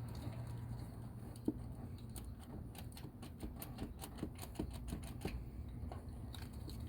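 Socket ratchet clicking in short runs as it backs out a pipe-threaded oil pressure sending unit, which stays tight most of the way out. One sharper click about a second and a half in, over a steady low hum.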